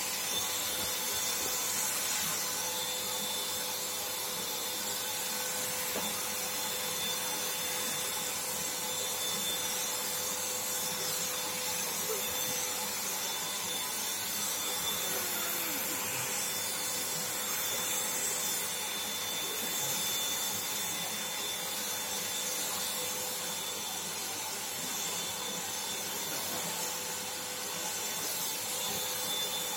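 Black & Decker HVLP400 electric HVLP paint sprayer running steadily while spraying paint: a constant whine over a hiss of air, without a break.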